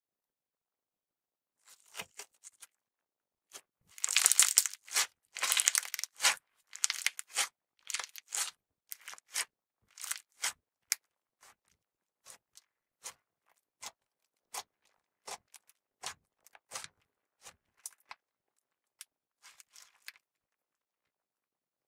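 Glossy sequin-filled slime being squeezed and kneaded by hand. A dense crackling squish comes about four to six seconds in, then a run of separate sharp pops and clicks that slows toward the end.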